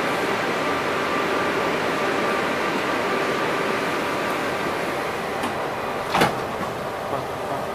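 Sliding passenger doors of a Metrowagonmash 81-775 "Moscow-2024" metro train closing, shutting with a sharp knock about six seconds in. A steady hum with faint tones from the standing train runs underneath.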